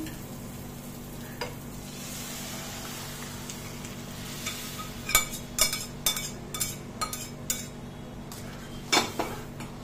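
Boiled chana dal tipped into a kadhai of hot fried spices, sizzling briefly, then a spoon stirring and knocking against the pan about twice a second, with one louder knock near the end.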